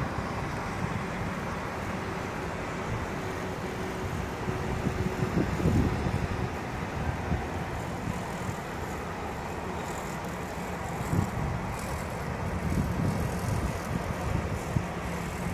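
Steady low rumble of wind and road noise from a moving vehicle, swelling louder a couple of times.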